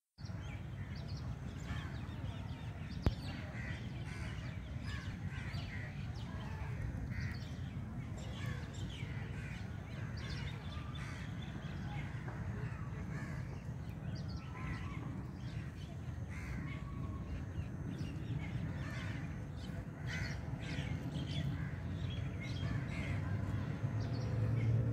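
Many short bird calls over a low steady rumble, with a single sharp click about three seconds in.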